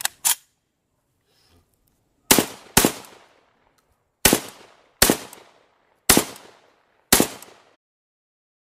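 A series of eight gunshots: two in quick succession at the start, a pair a little after two seconds in, then single shots about a second apart, each trailing off in a short echo.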